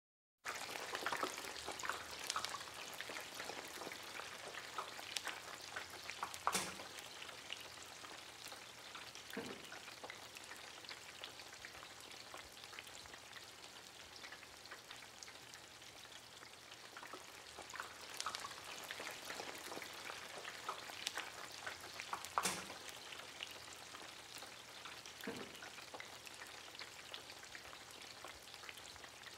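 Hot oil sizzling and crackling as food fries, a steady hiss dotted with spitting pops, a few of them louder, such as one about six and a half seconds in and another just past twenty-two seconds.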